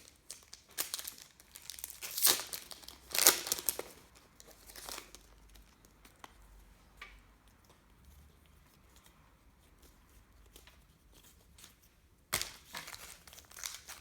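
A trading-card packet's wrapper being torn open and crinkled, in a few rustling bursts that are loudest about two to three seconds in. After a long quiet stretch the crinkling of the wrapper and cards starts again near the end.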